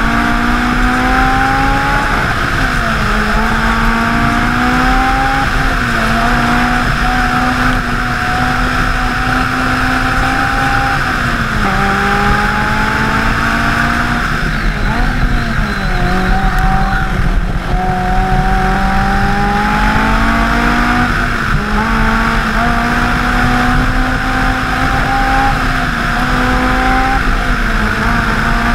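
Engine under hard driving, its revs climbing steadily and dropping back every few seconds through a run of corners, under a heavy rush of wind noise.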